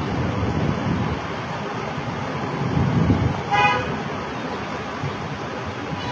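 A vehicle horn toots once, briefly, a little past halfway, over steady road traffic noise.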